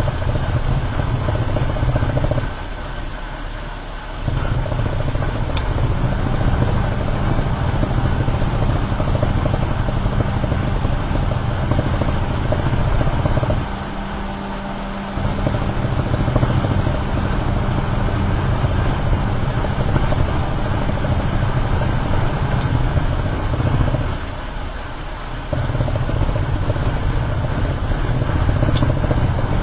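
Perodua Myvi on the move, heard from a camera mounted under the car by the front lower arm: a steady, loud rumble of tyres, road and wind, which dips briefly three times.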